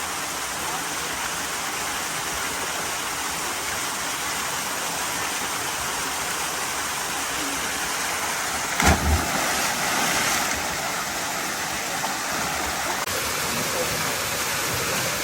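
Waterfall rushing steadily into a pool, with a sudden loud thump about nine seconds in.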